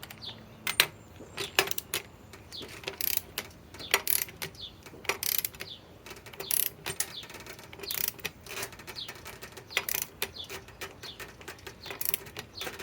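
Hand wrench's ratchet clicking in short irregular strokes as a nut is tightened to about 62 ft-lb.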